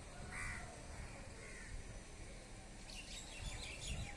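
Birds calling over a low steady rumble of outdoor background noise: a short harsh call about half a second in and a fainter one a second later, then a run of quick high chirps near the end.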